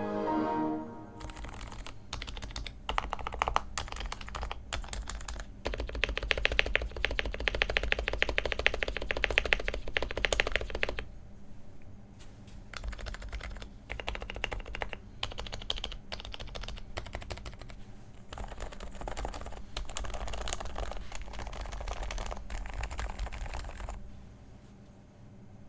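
Typing on a lubed HHKB Pro 2 keyboard with Topre electrocapacitive (rubber dome and spring) switches: muted, deep thock keystrokes in uneven runs, with a fast, loud burst of typing in the middle. The typing stops shortly before the end.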